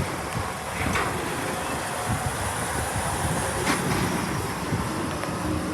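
Train passing, a steady rumble with irregular knocks and clicks from the wheels on the rails.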